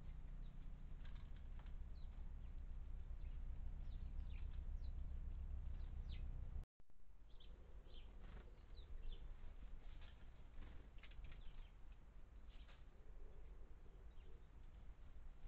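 Small garden birds giving short, scattered chirps over a low steady rumble. The sound cuts out for a moment about seven seconds in.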